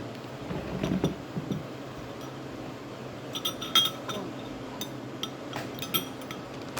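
Small dishes clinking: light handling knocks about a second in, then a scattered run of short ringing clinks from about three to six seconds in.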